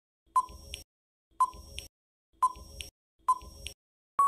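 Quiz countdown-timer sound effect: four short electronic ticks about a second apart, each a sharp beep followed by a softer tap, then a long steady beep starts right at the end as time runs out.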